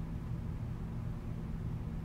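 Steady low rumble with a faint even hum, unchanging throughout, with no distinct events.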